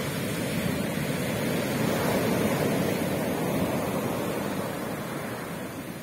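Sea waves breaking and washing up the beach: a steady rush of surf that swells about two seconds in and eases off toward the end.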